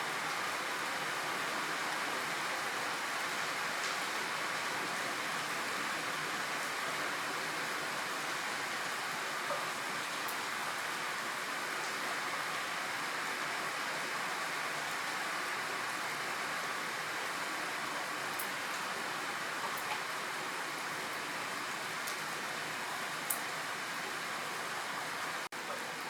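Steady rain falling, with a few sharper drop ticks now and then. The sound drops out for an instant near the end.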